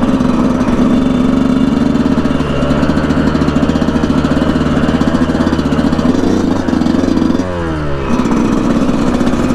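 Yamaha YZ125 two-stroke dirt bike engine running under throttle while riding. Near the end the pitch drops briefly as the throttle is rolled off, then it picks back up.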